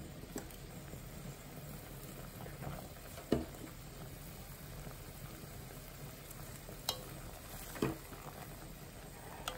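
Mushroom soup bubbling at a boil in a glass pot, a steady quiet simmering hiss, with a wooden spoon stirring and knocking lightly against the pot a few times.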